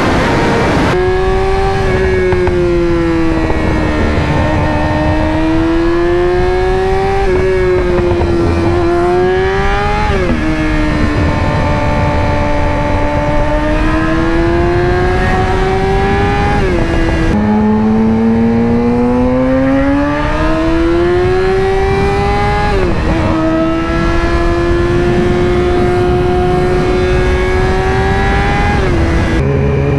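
Sportbike engine running at road speed. Its pitch climbs steadily and then drops sharply about five times as the rider shifts up, over a steady rushing noise.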